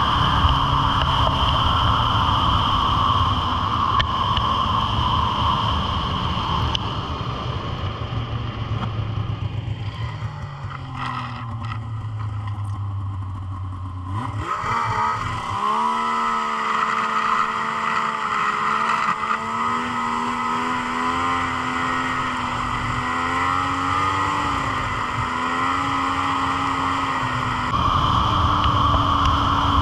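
Yamaha SXR 600's three-cylinder two-stroke snowmobile engine running at speed, revs dropping away about a third of the way through. It then runs at low revs with a steady, slightly wavering hum, and revs up again to ride off near the end.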